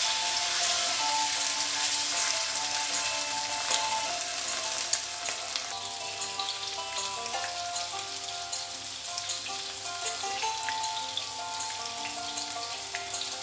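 Salmon steaks frying in hot oil in a pan: a steady sizzle with crackling pops, a little stronger in the first few seconds after the fish goes in. Background music plays under it.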